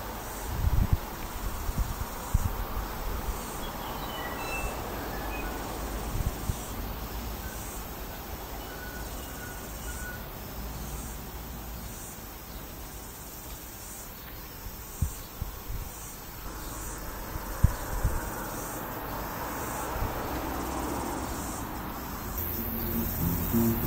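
Outdoor ambience of insects buzzing in a repeating pattern, each buzz lasting about a second, over a steady hiss, with a few short high notes in the first ten seconds and a few low thumps. Music comes in near the end.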